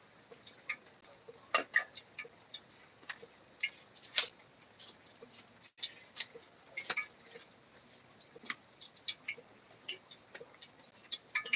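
Irregular light clicks and taps, with a few louder sharp knocks, from someone moving about a small room and handling things.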